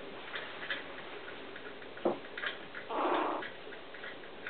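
Chihuahua puppies playing: a short vocal sound from one of the puppies just after three seconds in, over scattered light ticks and a soft knock about a second earlier.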